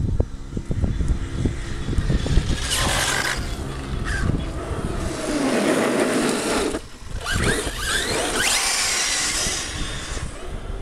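Radio-controlled monster truck driving fast on asphalt: motor whine and tyre noise surging as it accelerates past, dropping out abruptly for a moment just before the middle and then surging again. Wind buffets the microphone in the first few seconds.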